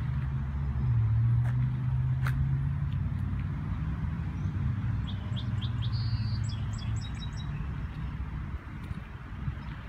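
A small bird chirps a quick run of short, high notes about halfway through, over a steady low vehicle hum that is loudest in the first few seconds and then fades.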